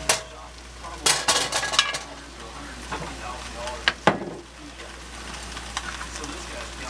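Beef, mushrooms and onions sizzling and crackling in a cast iron Dutch oven, the pan freshly deglazed with red wine. Several sharp knocks of pot and utensil come in the first four seconds, after which the sizzle goes on steadily.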